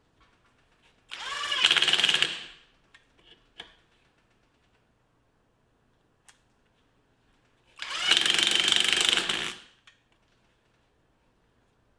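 National EZ6605 cordless impact driver running in two bursts of about a second and a half, each starting with a rising motor whine followed by the rapid rattle of its impact hammer as it drives screws into a block of wood. A few light clicks fall between the bursts.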